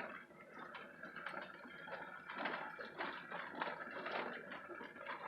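Car rolling slowly over a rough dirt trail, heard from inside the cabin: irregular crunching and rattling from the tyres and loose gear.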